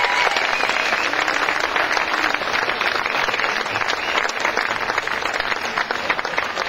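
Large audience applauding: a dense, steady patter of many hands clapping that eases off slightly toward the end.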